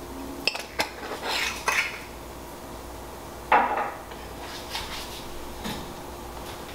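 Kitchen handling sounds around a stainless steel saucepan: a few light clicks and short scratchy rattles as a spice jar is handled, then one louder clank about three and a half seconds in, with a few small ticks after it. A faint steady hum runs underneath.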